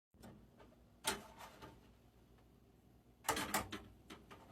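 A single sharp click about a second in, then a quick run of clicks and knocks near the end, like hardware being handled.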